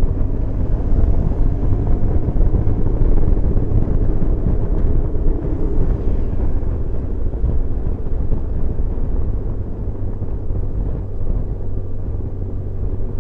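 BMW R1150GS Adventure's boxer twin running steadily at road speed, heard from the rider's seat as an even drone mixed with rushing wind.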